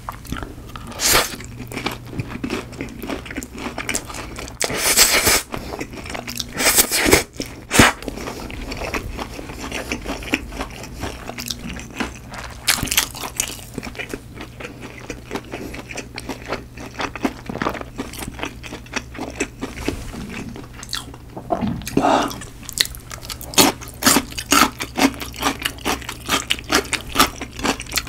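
Close-miked eating of cream carbonara buldak spicy instant noodles: a few loud slurps a few seconds in, then steady wet chewing and mouth clicks.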